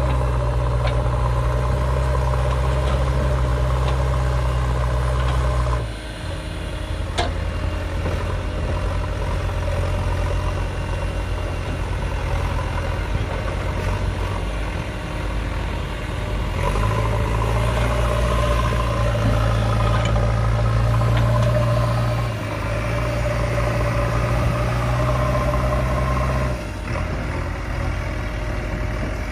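Diesel engine of a JCB 5DX backhoe loader running steadily under working load. Its note drops about six seconds in, comes back strong a little past the middle, and dips briefly twice near the end as the load changes.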